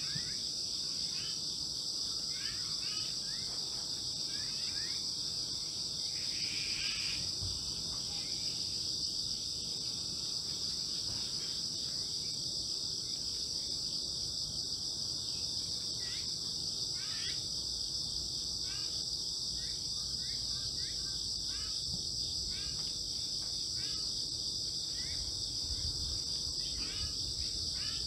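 A steady, high-pitched chorus of insects, crickets or cicadas, droning without a break, with scattered short chirps over it.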